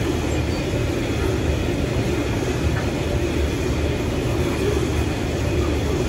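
A train rolling past, its wagons making a steady rumble on the rails.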